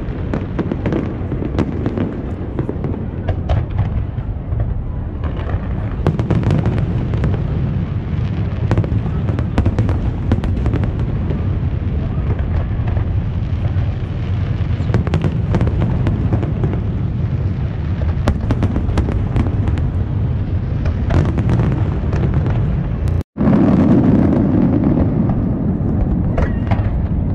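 Fireworks display: a continuous rumble of overlapping booms, studded throughout with many sharp bangs and crackles. The sound cuts out completely for an instant about three-quarters of the way through.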